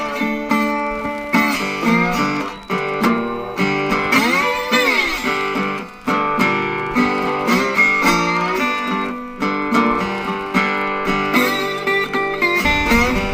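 Slide blues played on a National Tricone Style 1 metal-bodied resonator guitar: plucked notes and chords with the slide gliding up and down between pitches.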